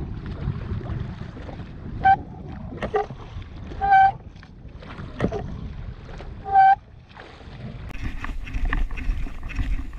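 Wind and choppy sea washing around a drifting jet ski, broken three times by a short, loud electronic beep of one mid-pitched tone, about two, four and six and a half seconds in. Near the end a low rumble grows louder.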